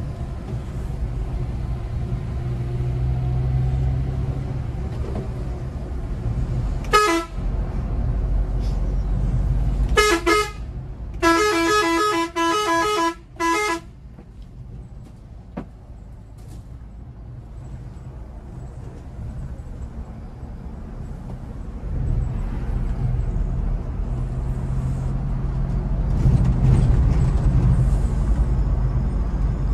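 Scania multi-axle coach's diesel engine running, heard from inside the cab, with a horn sounding: a short toot about seven seconds in, a quick double toot near ten seconds, then a longer blast of about two seconds. The engine then drops to a quieter rumble and picks up again, louder, for the last several seconds.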